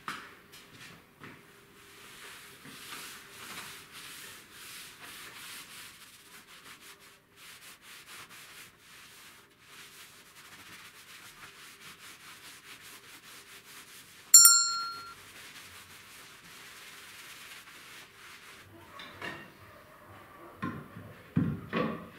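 Cloth wiping back and forth over a wooden workbench top, a steady scratchy rubbing made of repeated strokes. About two-thirds of the way through there is one short, ringing metallic ding, the loudest sound. Near the end come several wooden knocks and thuds.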